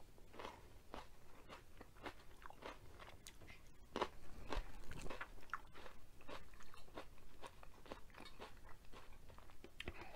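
Close-miked chewing of crisp raw yellow bell pepper: a steady run of short, sharp crunches, loudest from about four seconds in.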